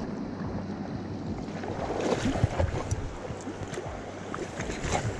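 Shallow river riffle rushing steadily, with wind rumbling on the microphone and a few light knocks and splashes.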